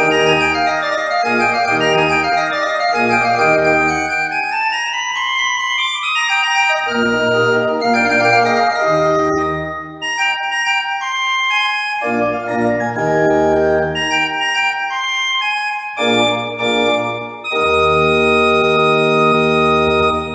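Church pipe organ played four-hands: the closing bars of an entrance piece. Held chords with a rising run about five seconds in, brief breaks between phrases, and a long final chord that ends it.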